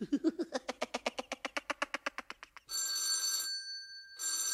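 A fast run of clicks, about ten a second, fading out over two and a half seconds, then an electric doorbell ringing twice in short rings.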